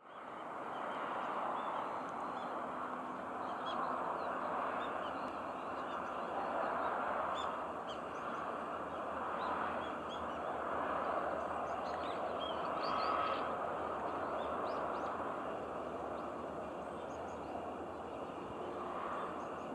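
Birds chirping repeatedly in short calls over a steady, far-off rushing noise.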